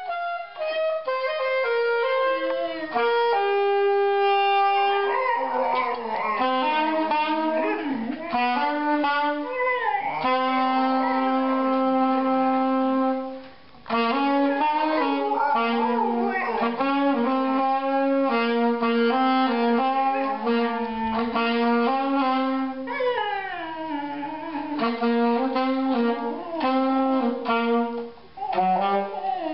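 A dog howling along to music, its howls gliding and wavering in pitch over a tune of held, stepping notes.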